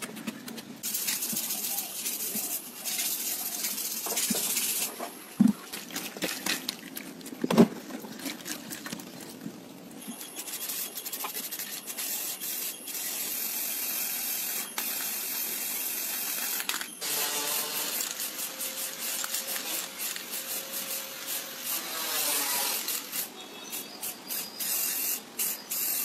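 Aerosol spray-paint can hissing in bursts of several seconds each, with two short sharp knocks between the first and second bursts.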